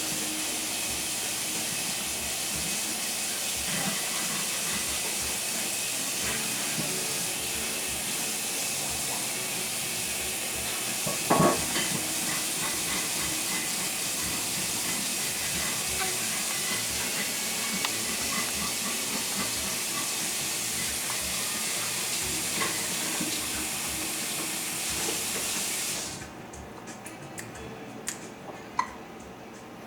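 Steady hiss that cuts off suddenly about 26 seconds in, with one short, sharp hiccup about 11 seconds in.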